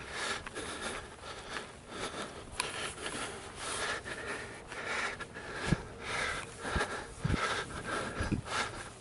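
A person's heavy breathing and sniffing close to the microphone, in repeated rushes about once a second. A few short low thumps come in the second half.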